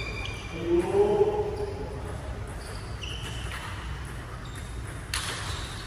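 Badminton doubles rally on an indoor court: sharp racket hits on the shuttlecock and sneakers squeaking on the court floor, with a short shout about a second in.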